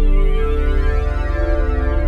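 Background music of sustained synthesizer keyboard chords.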